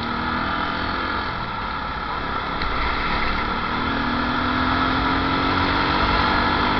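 Motorcycle engine running while riding, over steady road and wind noise; from about halfway its pitch rises slowly as it speeds up.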